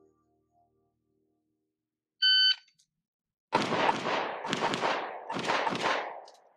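A shot timer's start beep, then about a second later a rapid string of handgun shots fired in quick pairs.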